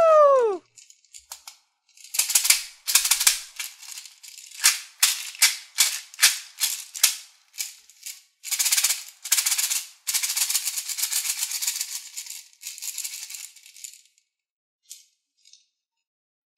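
Small plastic beads rattling inside a plastic toy baby bottle as it is shaken, first in short separate shakes, then in longer runs of shaking, stopping about two seconds before the end. A falling boing sound effect dies away at the very start.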